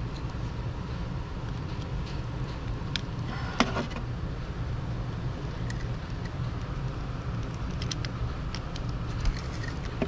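A few small metallic clicks and taps as a screwdriver and pliers work wires onto a light switch's screw terminals, over a steady low rumble.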